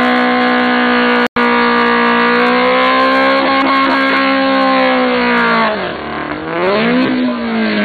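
Volkswagen Beetle drag car's engine held at steady high revs during a burnout, with a very short break about a second in. Near the end the revs drop, rise once more and fall away.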